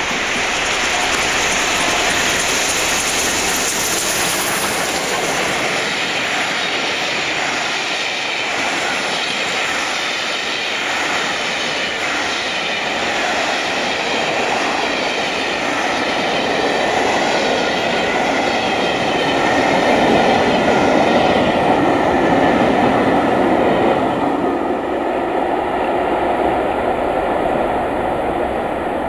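Steam-hauled passenger train of coaches behind LNER A1 Pacific 60163 Tornado passing close by, its wheels clattering steadily over the rail joints. The locomotive drifts through on a shut regulator, so there is no exhaust beat, only running noise. The sound eases a little near the end as the train draws away.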